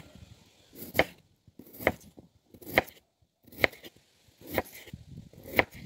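Kitchen knife slicing a peeled potato into rounds on a wooden cutting board: six sharp knocks of the blade reaching the board, about one a second, each with a short soft cut just before it.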